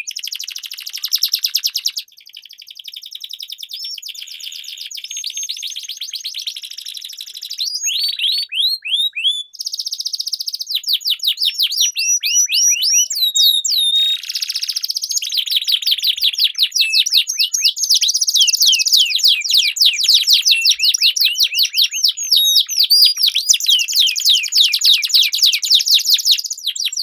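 Domestic canary song: long, rapid rolled trills, one trilled phrase running straight into the next. The song is quieter for a few seconds early on, then grows louder.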